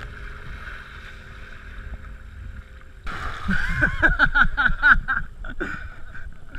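Canoe paddling on open water: water sloshing around the paddle and hull, with wind rumble on a chest-mounted GoPro. From about three seconds in, a louder run of short pitched sounds repeats about four times a second.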